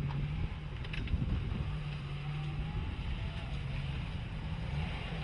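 Lifted Jeep Cherokee XJ's engine running as it drives through snowy mud, its low note steady apart from brief dips. Wind buffets the microphone throughout.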